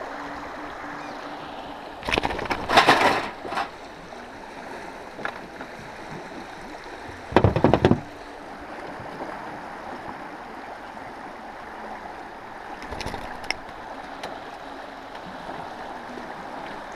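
Steady rush of river water flowing around a small aluminium fishing boat. Two clusters of short, loud knocks and rattles break in, about two seconds in and again about seven seconds in.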